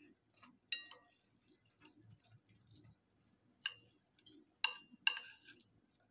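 Chopsticks clicking against a ceramic plate while picking up pieces of fried cabbage-and-egg fritter: four sharp, ringing clicks, one about a second in and three close together past the halfway point.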